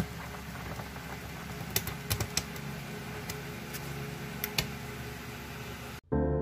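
Paperback book pages being handled and flipped: scattered sharp paper ticks and taps over a steady hiss. Soft piano music starts suddenly near the end.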